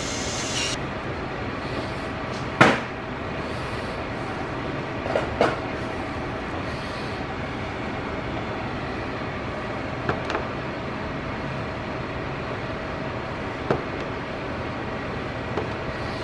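A few scattered clicks and knocks from hands fitting a plastic intake hose and its hose clamp, the loudest about two and a half seconds in, over a steady background hum.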